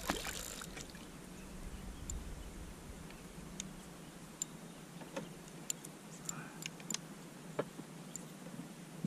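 A hooked bass splashing briefly at the surface beside the boat, then mostly quiet with scattered small sharp clicks and ticks as the fish is lifted out on the line and handled by the lure.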